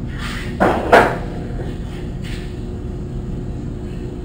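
Two quick clunks about a third of a second apart, from the old refrigerator's cabinet and door hardware being handled during removal of its handles. A steady low hum continues underneath.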